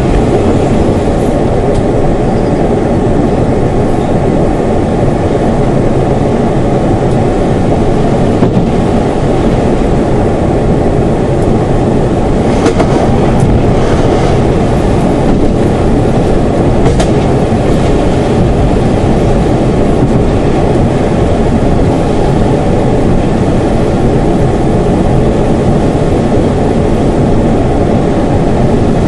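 Class 171 Turbostar diesel multiple unit running at speed, heard from the driver's cab as a steady loud rumble of engine and wheels on rail. A few sharp clicks come in the middle as the wheels cross pointwork.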